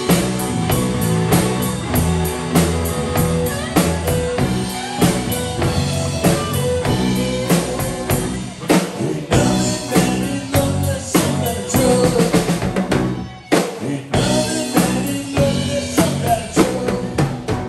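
Live rock band playing amplified: drum kit keeping a steady beat under electric guitars, bass and keyboard. The music breaks off briefly about two-thirds of the way through, then comes back in and stops right at the end.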